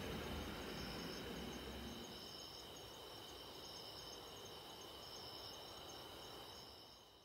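Insects trilling in a steady, high chorus, one trill swelling on and off about once a second. A low musical tail dies away in the first two seconds, and everything fades out at the end.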